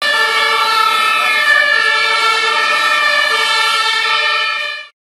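A loud, steady horn sounding a chord of several tones at once, held without changing pitch, then cut off abruptly near the end.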